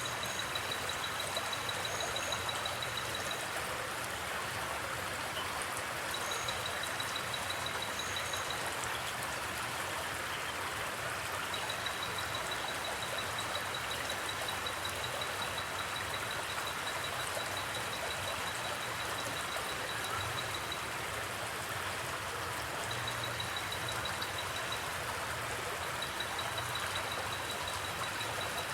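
River water flowing steadily, with a cricket trilling a high, rapidly pulsed note in repeated runs of a few seconds each.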